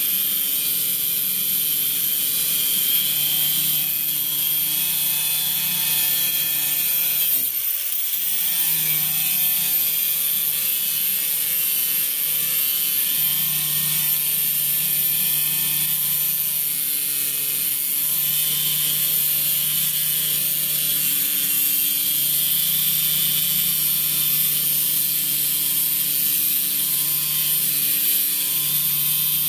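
A power tool running steadily. About eight seconds in it dips briefly and then spins back up.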